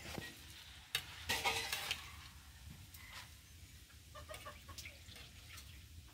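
Perforated metal skimmer stirring and pushing jalebis through sugar syrup in a metal karahi, with a sharp clink against the pan about a second in, then a second or so of louder stirring noise and a few lighter clicks.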